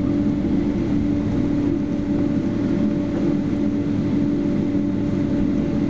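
Cabin noise of a Boeing 767-300ER taxiing after landing: its Pratt & Whitney PW4060 engines at taxi idle give a steady hum with a few low held tones, over a low rumble.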